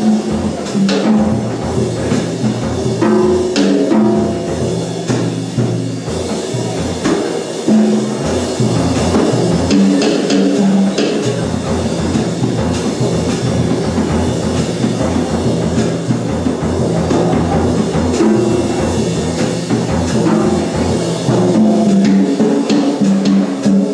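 Live solo percussion: fast, continuous drumming on pitched drums, low drum tones under a dense run of strokes, with a few sharper hits standing out.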